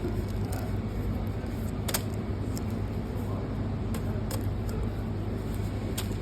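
Steady low background rumble, with a handful of short sharp clicks and crackles from a paper bag and fork as a pastry is prised open.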